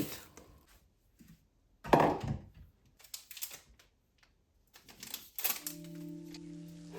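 A thump of something set down on a hard surface about two seconds in, followed by scattered light clicks and knocks of handling. Soft music with sustained tones begins near the end.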